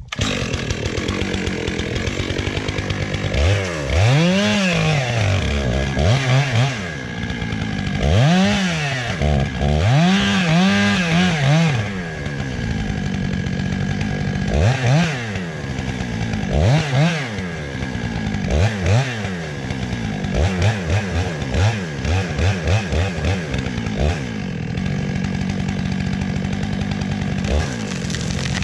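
Gas chainsaw running, revved up and down over and over as it cuts into a tree trunk to fell it, the engine pitch rising and falling in long sweeps. From about twenty seconds in, the revs come quicker and shorter.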